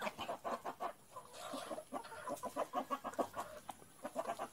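Several chickens clucking as they feed, many short calls in quick succession.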